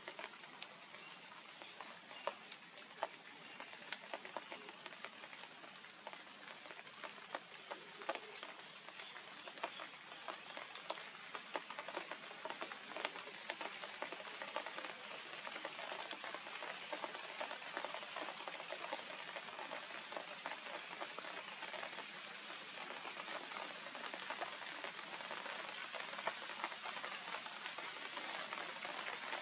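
Steady patter of light rain on grass and leaves, full of faint ticks and growing a little louder, with a short high chirp repeating every second or two.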